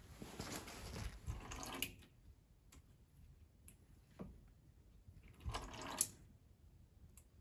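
Hydraulic oil draining from an opened hydraulic cylinder into a catch container, pouring harder in two stretches as the piston rod is worked by hand: the first in the opening two seconds, the second shorter, a little past the middle, ending in a sharp knock.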